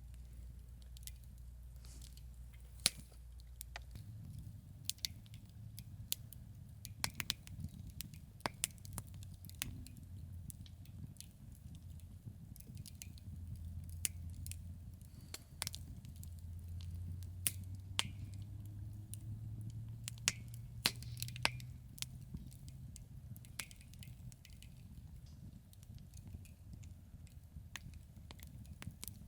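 Wood campfire crackling, with irregular sharp pops and snaps from the burning wood over a low steady rumble.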